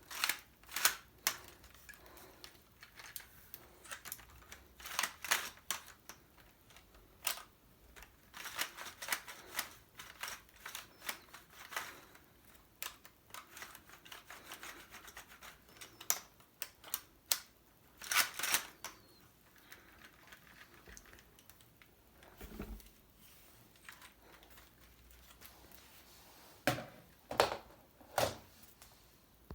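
Lego plastic parts clicking and rattling as a Lego rifle model is handled: irregular small sharp clicks in clusters, a duller thump about two-thirds of the way through, and a few louder knocks near the end.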